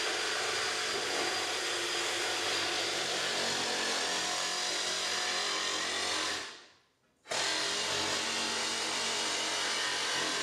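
DeWalt jigsaw with a standard wood blade cutting through a large-diameter PVC pipe wall, running steadily. The sound drops out for under a second about two-thirds through, then the saw carries on cutting.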